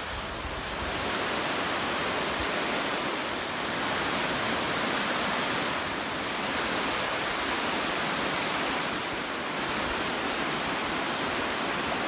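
Steady rush of a river running over rocks, an even hiss that swells and eases a little.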